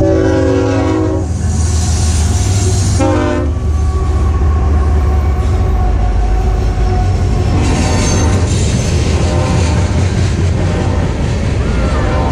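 A train going by with a steady low rumble and wheel clatter. Its horn sounds a blast of about a second at the start and a shorter blast about three seconds in.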